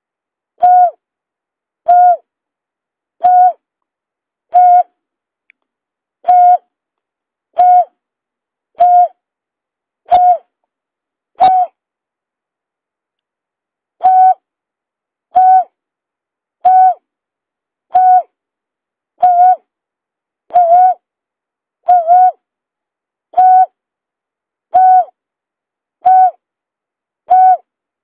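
Greater painted-snipe (berkik) hooting call, used as a bird-trapping lure call. Short, low hoots repeat evenly about every second and a half, with one pause of about three seconds midway.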